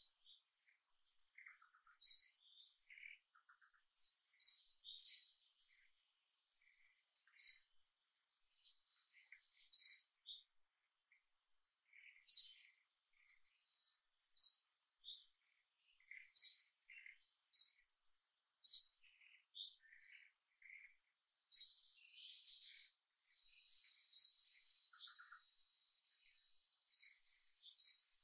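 Birds chirping outdoors: short, high notes every second or two, over a thin, steady, high insect drone. The insect sound thickens for a few seconds past the middle.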